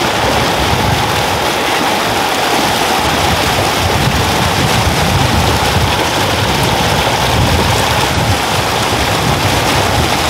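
Fast mountain river rushing, a loud, steady roar of water.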